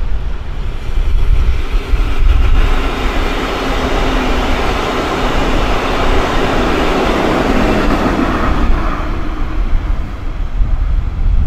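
VIA Rail Siemens Venture passenger train, led by a Charger SCV-42 locomotive, passing at speed: the wheels-on-rail noise swells as the train draws near, is loudest about two-thirds of the way through as the cars go by, then fades as it moves off.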